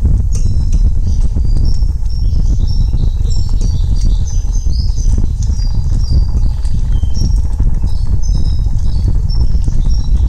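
Many quick, high chirps, like small birds calling, over a loud, steady low rumble.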